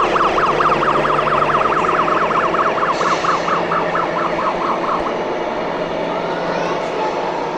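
A siren in a fast yelp, its pitch sweeping up and down about four or five times a second, stopping about five seconds in, over a steady background hubbub.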